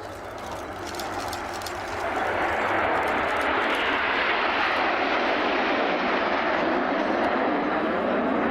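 Aircraft engine noise from an airplane in flight, swelling over the first two seconds and then holding loud and steady.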